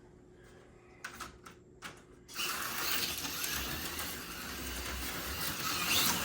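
AFX Super G-Plus HO slot car running on its track: a steady mechanical whir of the small motor and gears with a hiss from the wheels and pickups, starting about two seconds in after a few light clicks.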